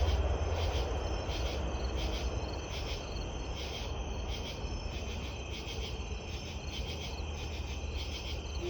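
Low rumble of a Long Island Rail Road train fading as it moves away. Insects chirp steadily in an even, repeating rhythm throughout.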